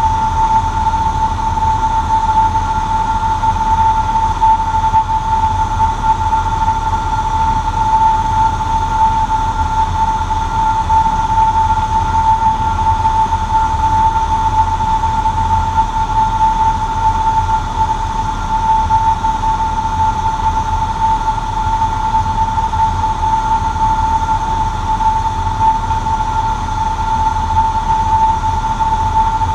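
Cessna 150J's Continental O-200 four-cylinder engine and propeller running steadily, heard inside the small cockpit as a low rumble with a steady high whine on top.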